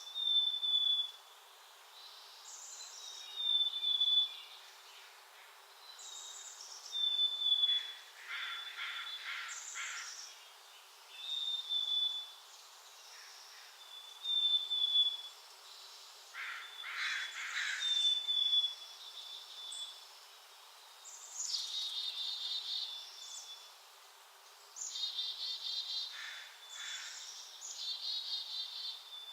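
Songbirds calling: a short, high, slightly falling call repeats every two to three seconds. Two lower buzzy bursts come about a third and halfway through, and quick runs of repeated notes follow near the end.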